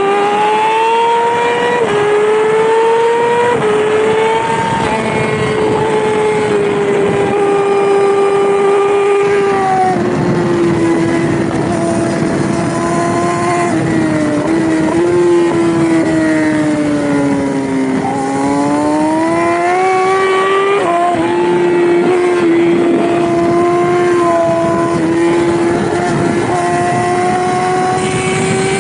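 Yamaha R6 600cc inline-four engine at high revs under racing load. The revs climb in quick steps through the opening seconds, dip about a third of the way in, sink to their lowest a little past halfway, then rise again and hold high.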